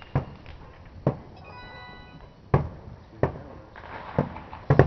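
Fireworks going off around the neighbourhood: about six sharp, irregular bangs, which the listeners take for firework mortars rather than gunshots. A brief high tone sounds between the bangs at about one and a half seconds in.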